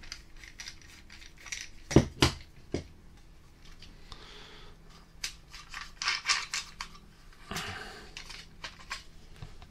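Hand-handling clicks and knocks of hard plastic and metal parts as a 3D scanner is unscrewed from its small ball-head mount. Two sharp knocks come about two seconds in, a flurry of small clicks around six seconds, and more near the end.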